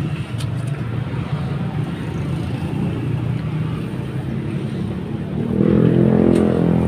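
Street traffic: a steady low engine rumble, with a motor vehicle's engine growing louder and closer about five and a half seconds in.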